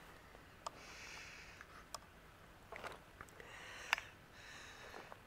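Faint breathing through the nose close to the microphone: several soft breaths about a second apart, with a few small clicks from the camera being handled.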